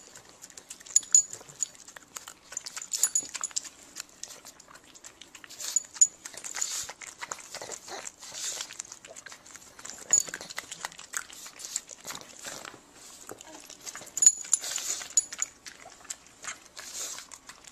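A pug snuffling, snorting and licking right at the microphone: an irregular string of short wet clicks and snorts.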